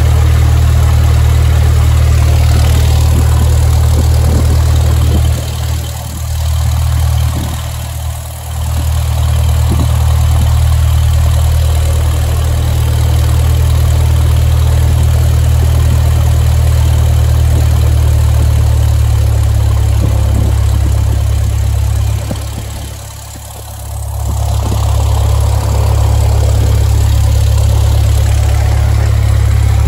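A single-engine Cessna's piston engine and propeller running steadily at low taxi power, heard inside the cabin as a deep steady drone. The level drops briefly at about six, eight and twenty-three seconds in.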